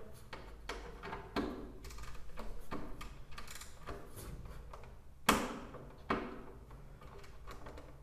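Hand socket wrench with a 5 mm socket working a small hex screw out of a washing machine's timer, in its plastic control panel: irregular clicks and light knocks of metal tool on screw and plastic, with two sharper knocks about five and six seconds in.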